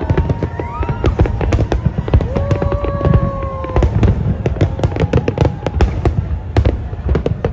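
New Year fireworks display: rapid, overlapping bangs and crackles over a steady low rumble. A few held, voice-like whoops rise above it, the longest about two seconds in.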